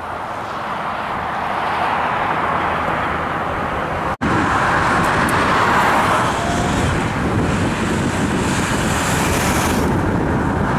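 Steady road-traffic noise of motor vehicles passing, with no clear engine note, broken by a sudden brief dropout about four seconds in.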